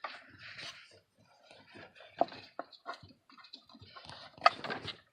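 Screwdriver prying at the plastic lock of an alternator wiring harness connector: irregular clicks, scrapes and small knocks of tool on plastic and metal, with sharper clicks about two seconds in and near the end.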